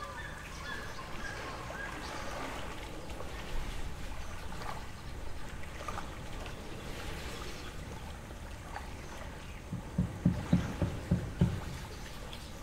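Lake water lapping steadily at the shore, with short bird calls in the first couple of seconds. Near the end comes a quick run of about six low thumps, the loudest sounds here.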